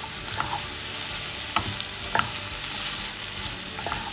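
Sliced onions sizzling as they shallow-fry in hot oil in a non-stick pan, stirred with a wooden spatula. The spatula knocks against the pan about four times, loudest about one and a half and two seconds in.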